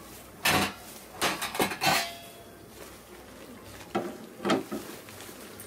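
Stainless steel kitchenware being handled: a quick run of metal clinks and knocks in the first two seconds, one leaving a brief ring, then two more knocks about four seconds in.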